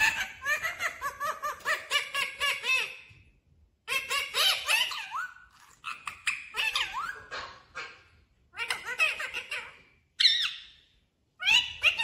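Rose-ringed parakeet chattering in several bursts of quick, rising-and-falling chirps, with short pauses between them.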